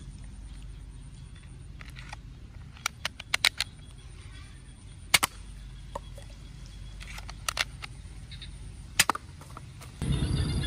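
Blue plastic toy pistol shooting small balls at plastic cups: scattered sharp plastic clicks from the shots and the cups being hit, about ten in all, some in quick runs of two to four. Near the end a louder rustling handling noise starts.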